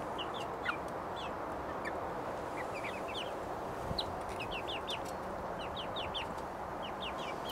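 Young chickens about seven weeks old cheeping: many short, high, downward-sliding peeps scattered throughout, over a steady background hiss.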